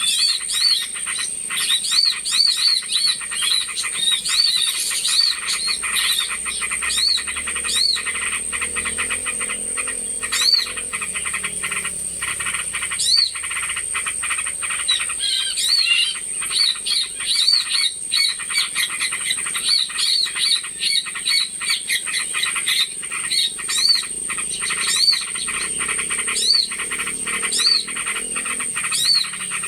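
Bird-lure recording of a noisy mix of small birds calling: short arched chirps repeating several times a second over dense rapid clicking chatter and a steady high thin whine.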